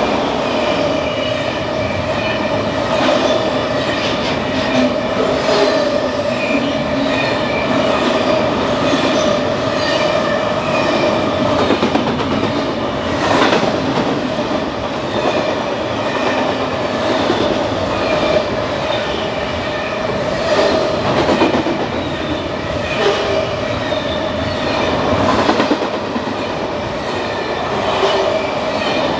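Double-stack intermodal freight train passing close at speed: steady rush of steel wheels on rail with a steady ringing tone and occasional sharp clacks as the well cars go by.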